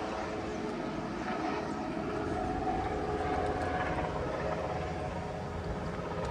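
A distant engine drone, heard as a few steady held tones, over a constant wash of surf and wind.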